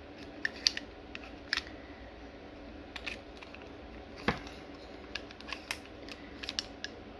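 Scattered small clicks and knocks of an airsoft gun and its stripped parts being handled, with the loudest knock about four seconds in.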